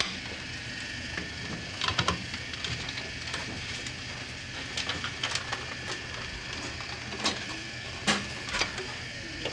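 Scattered light clicks and knocks from handling at a film editing table, over a steady background hiss with a faint high whine.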